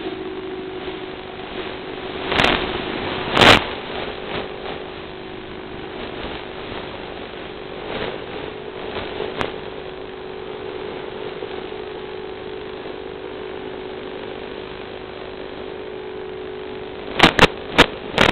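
Electric motor and propeller of an FPV aircraft in flight, heard through its onboard camera's microphone as a steady hum with rushing noise. A few sharp loud pops break in, two early on and four in quick succession near the end.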